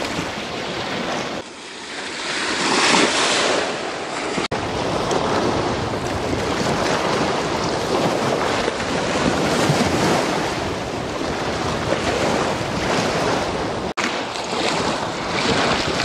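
Strong wind gusting across the microphone over small waves splashing against a concrete shore, a steady rushing noise with a few sudden breaks.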